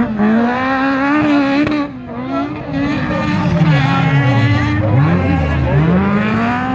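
Autocross car engines revving hard, the pitch climbing at the start and holding high with a brief drop about two seconds in, then falling away and climbing again twice as the cars accelerate through the course.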